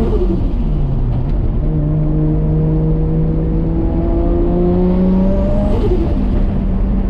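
Modified 550 hp RB25DET turbocharged straight-six of an R33 Nissan Skyline pulling on the road. The engine note drops sharply twice, right at the start and about six seconds in, as between gears, and climbs slowly in between.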